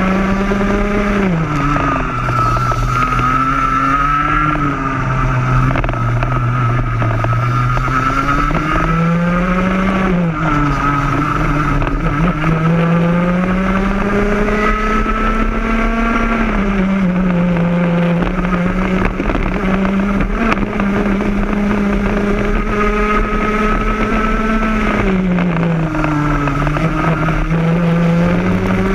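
Rotax Max 125cc two-stroke single-cylinder kart engine at racing speed, heard onboard the kart. Its pitch falls sharply several times as the kart slows for corners and climbs again as it accelerates out of them.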